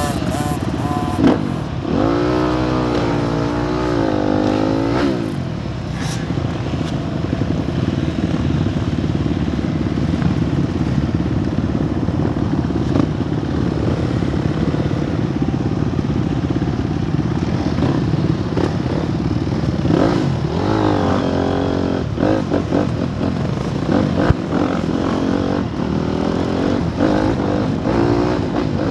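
Onboard motocross bike engine running throughout, revved in rising and falling sweeps about two seconds in and again around twenty seconds in, picking up speed toward the end.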